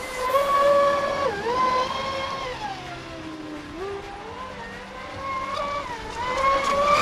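Traxxas Spartan 6S RC speed boat's brushless electric motor whining as the throttle is worked. The pitch climbs at the start, dips briefly after a second, falls away about halfway through, then climbs steadily again toward the end.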